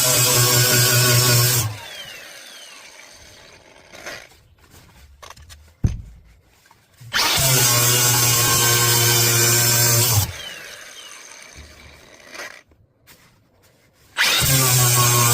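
Angle grinder with a flap disc grinding down a fiberglass boat transom. It runs in bursts, is switched off and winds down twice, and leaves quiet gaps of several seconds between. A single sharp knock comes in the first gap.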